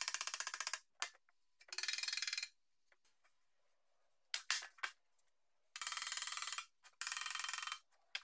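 Hammer striking the thin sheet-steel sides of an old metal toolbox in quick runs of rapid blows, four short bursts with a few single knocks between them, as the bent sides are knocked straight.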